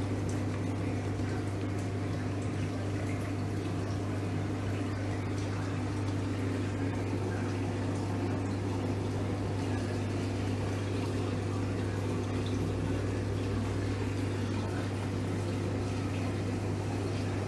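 Aquarium pumps and circulating water of a reef coral tank system running steadily: a constant low hum under an even wash of moving water.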